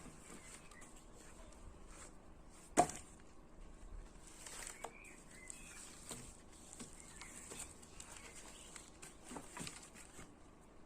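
Wood knocking: one sharp knock about three seconds in, then a few fainter knocks and rustles, with faint bird chirps.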